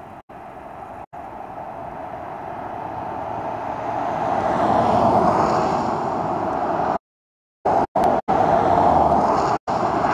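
A road vehicle approaching and passing, its engine and tyre noise swelling steadily over about five seconds. The sound cuts out to silence in several short gaps, including a longer one of about half a second near the end.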